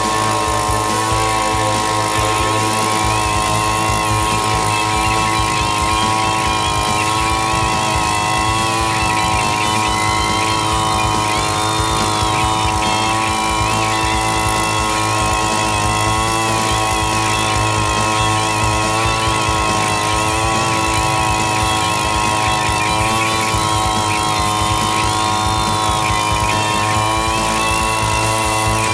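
Small engine of a PC-351E rice paddy weeder running steadily at a constant speed while it drives its rotary weeding wheels, with a wavering higher whine over the engine note.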